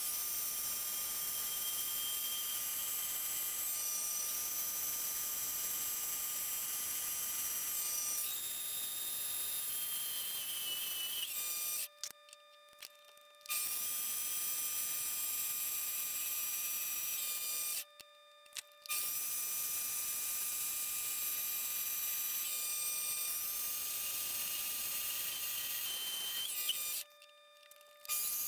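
Mini lathe running while a carbide tool turns down mild steel round stock: a steady high motor and gear whine over a hiss, shifting pitch a few times. The sound drops out abruptly three times for about a second each.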